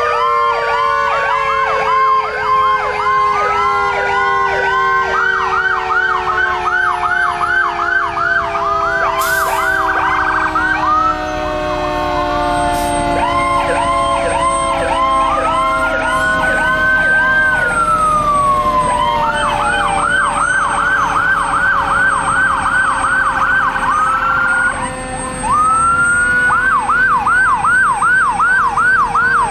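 Several fire trucks' sirens sounding at once: fast overlapping electronic yelps, with one slow wail rising and falling about halfway through, over a low tone that falls slowly throughout.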